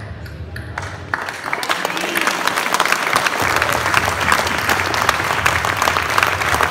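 Audience applauding: a few scattered claps about a second in quickly grow into full, steady applause.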